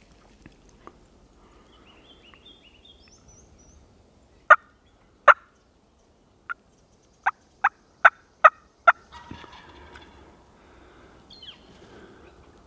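Hunt North Northwing 3 mouth diaphragm turkey call worked by the hunter, giving eight short, sharp hen-turkey calls: two well spaced, then six in quicker succession, calling to draw in a gobbler. Faint songbird chirps sound in the background.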